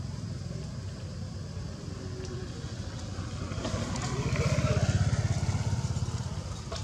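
A small engine running steadily with an even low pulse, growing louder about three and a half seconds in and easing off again near the end.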